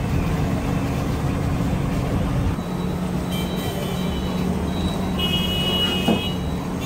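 Steady rumble of street traffic, with two brief high-pitched tones in the second half.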